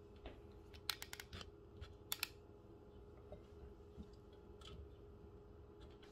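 Cheddar cheese being grated on a stainless steel box grater, with faint rasping strokes and a few sharp clicks, clustered about a second in and again at about two seconds.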